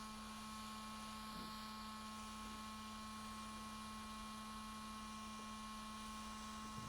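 Faint steady electrical hum, a constant low tone with a fainter higher tone over light hiss.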